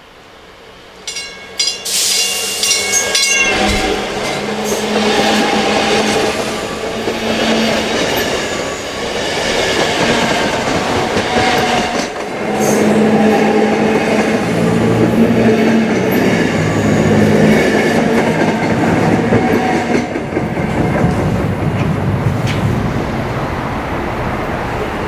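South Shore Line electric multiple-unit commuter train sounding its horn in short blasts about a second in, then passing close by with its wheels clattering over the rail joints. From about halfway, another train rolls along with steady wheel and rail noise.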